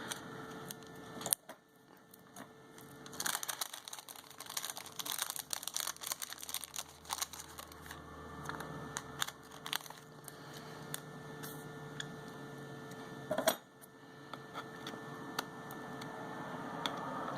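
Scattered small clicks and crinkling of hands working on an LG G5 phone as its replacement rear camera glass is fitted, over a low electrical hum.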